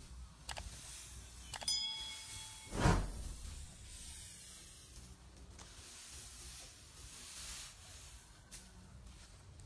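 Dry rice straw rustling and hissing as it is raked and gathered into a heap, with a few light clicks and one heavy thump about three seconds in. A short bell-like ding sounds just before the thump.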